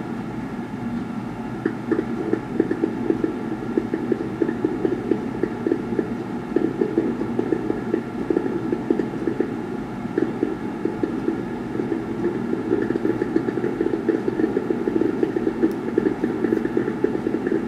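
Fireworks bursting in rapid, irregular succession, heard as muffled thuds and crackle played through a TV's speaker.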